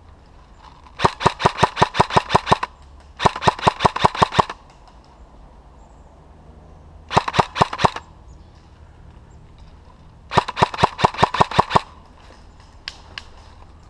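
Airsoft gun firing four full-auto bursts of sharp, rapid shots, about eight a second, then two fainter single shots near the end.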